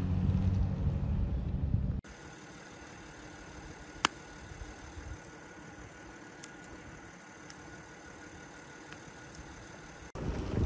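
Low rumble of wind on the microphone for about two seconds. It then cuts abruptly to a faint steady hum with a thin high whine and a single sharp click about two seconds later. Just before the end it cuts back to loud rumbling noise.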